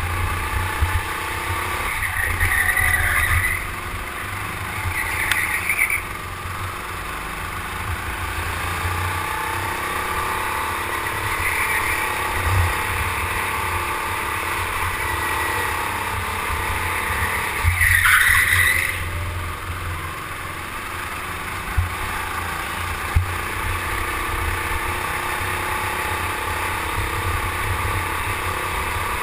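Indoor racing go-kart heard from on board, its motor running steadily with a pitch that rises and falls with speed through the corners, and a few brief higher squeals along the way.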